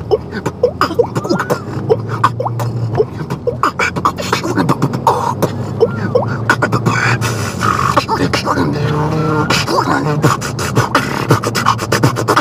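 Human beatboxing: a fast stream of mouth-made percussive clicks and pops, mixed with short hummed notes that slide up and down.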